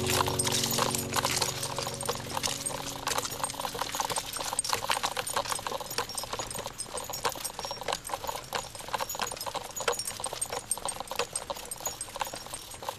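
Rapid, irregular clicking and rattling from a dog's wheelchair cart as a German shepherd walks it along a concrete sidewalk, the dog's footsteps and the cart's metal frame ticking together. The tail of background music fades out in the first few seconds.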